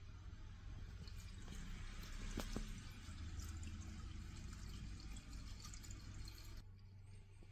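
Premixed two-stroke fuel poured from a plastic jug into the fuel tank of a UDT UCS-45S chainsaw: a faint steady trickle that stops near the end.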